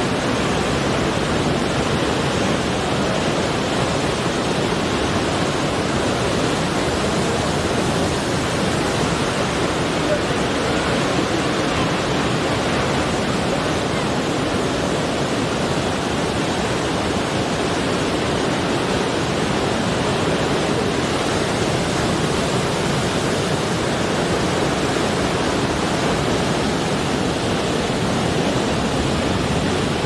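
Ocean surf breaking over a rocky shore, a steady, even rush of water and spray.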